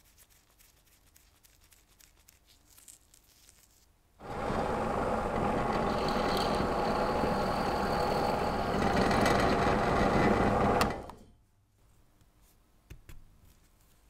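A workshop tool runs steadily and loudly for about seven seconds, starting about four seconds in and cutting off sharply. Before it, faint clicks of small brass lighter parts being handled.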